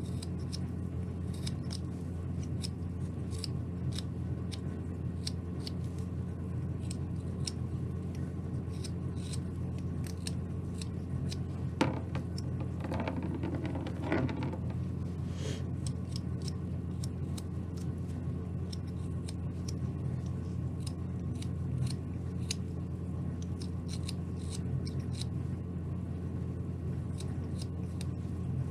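Carving knife making paring cuts in basswood: a quick series of short, crisp slicing strokes over a steady low hum. There is a single sharp knock about twelve seconds in, with a brief scratchy rubbing just after.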